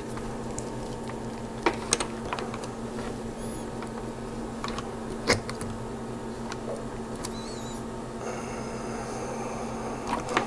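Test-lead plugs being handled and pushed into the input jacks of a Fluke digital multimeter: scattered plastic clicks and knocks over a steady low hum. A faint steady high tone comes in about eight seconds in.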